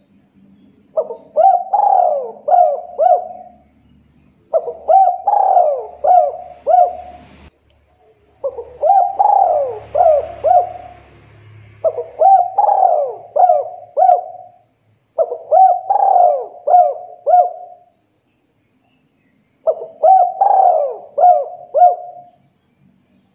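Spotted dove (tekukur) cooing: six phrases in a row, each a quick run of several rolling coos, with short pauses between them.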